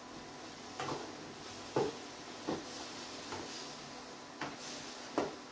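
Wooden spatula scraping and knocking against a kadhai while stirring grated beetroot, about six strokes roughly a second apart, over a faint steady hiss.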